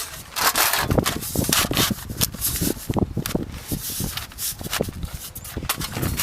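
Metal roof vent flashing being pushed up under asphalt shingles, making an irregular run of scraping and rubbing with small knocks.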